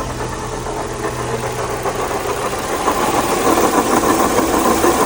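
Chevrolet Tracker engine running with a loud mechanical noise from the belt-driven accessories outside the engine. The noise grows louder about two seconds in. It comes from play in a worn water pump bearing.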